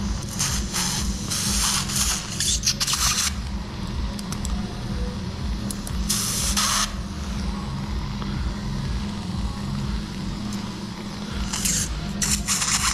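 Surgical suction tip drawing fluid from an open wound, hissing in bursts: a long one over the first three seconds, a short one about six seconds in, and another near the end. A steady low rumble runs underneath.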